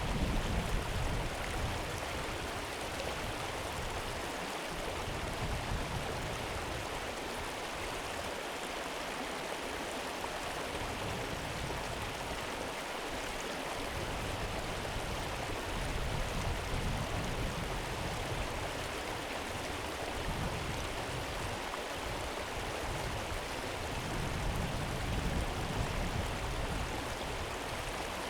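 River water flowing in a steady, even rush, with a low rumble swelling now and then.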